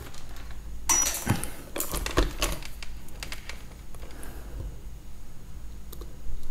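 A quick run of small clicks and light metallic clatter that starts about a second in and lasts a couple of seconds, then one more click near the end: small metal tools being handled and set down on a repair bench.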